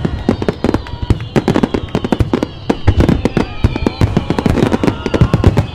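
Rapid barrage of aerial firework shells bursting, several bangs a second, over orchestral music.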